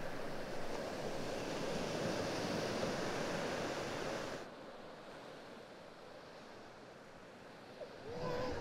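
Sea surf washing on a beach, a louder, surging wash that cuts off abruptly about four and a half seconds in, followed by a quieter, steady wash of waves.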